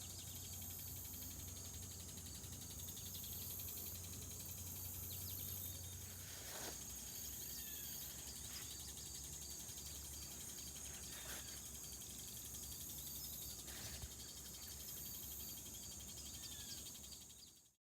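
Faint outdoor ambience of a steady, high-pitched insect chorus of crickets, with a few brief faint chirps and four soft knocks scattered through it. It cuts off suddenly shortly before the end.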